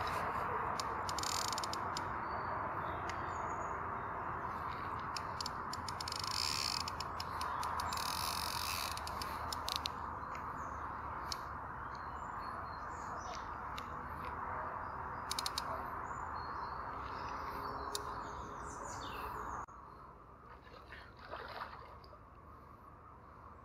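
Steady outdoor hiss with small birds chirping and a few scattered sharp clicks; the hiss drops away suddenly near the end, leaving the birds quieter.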